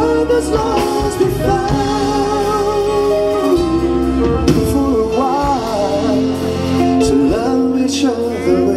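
Slow ballad music: held chords with a wavering melodic line gliding over them.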